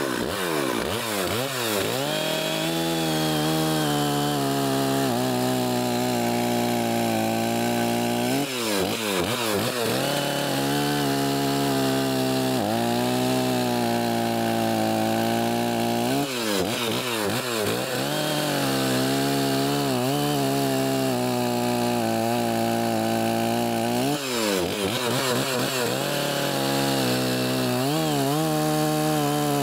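Stihl 046 two-stroke gas chainsaw running at full throttle while cutting through a log, the engine note held high and steady through long stretches of the cut and dropping then revving back up several times as the throttle is eased and squeezed again.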